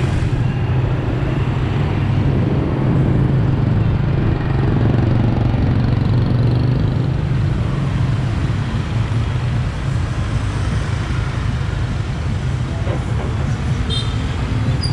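Riding a motorbike through city traffic, heard from the rider's seat: a loud, steady low rumble of engine and road noise. A brief high-pitched tone sounds near the end.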